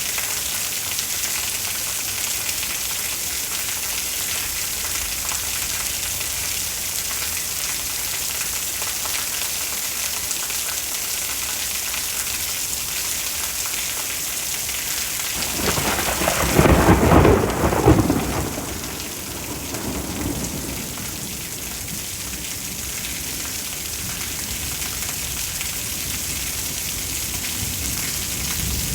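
Steady rain falling during a thunderstorm, with a loud clap of thunder a little past the middle. The thunder rumbles on for a few seconds and fades back into the rain.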